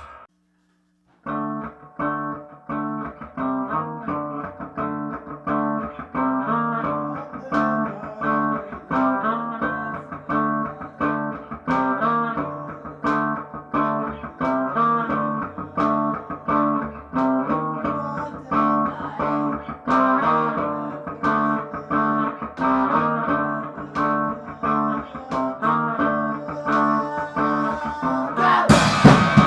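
Solo guitar picking a repeated riff of plucked notes, starting about a second in after a brief silence. Near the end the full band crashes in loudly with drums.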